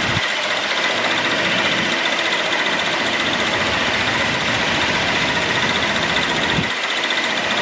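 Jet airliner engines running with a steady, loud roar and a high whine.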